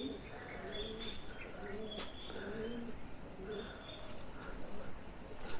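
Pigeons cooing in short repeated low calls, with small birds chirping higher up.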